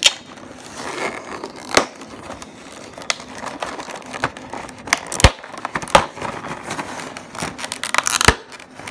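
Thin clear plastic clamshell packaging of a mini-helmet set being handled and pried open: crinkling plastic with several sharp snaps and clicks.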